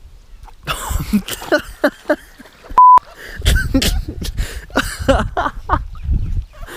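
A single short, loud censor bleep, a steady 1 kHz tone, about three seconds in, dropped over loud, agitated voice sounds.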